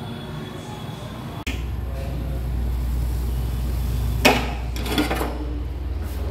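Steel saucepan of milk tea boiling over a gas burner, with a steady low rumble, then a sharp metal clank about four seconds in and a lighter knock a moment later as the pan is lifted off the stove.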